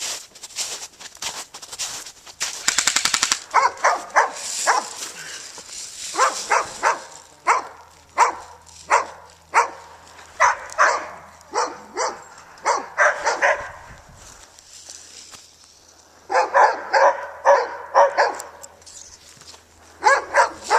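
A dog barking repeatedly, in short barks alone or in quick clusters, after a rapid string of airsoft gunfire in the first three seconds.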